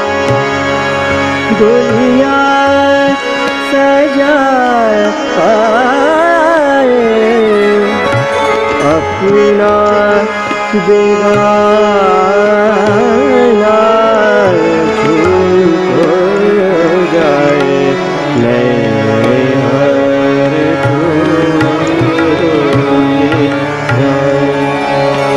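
Male Hindustani semi-classical singing in Raag Bhairavi, a gliding, heavily ornamented melody over a steady drone, with tabla keeping a regular rhythm underneath.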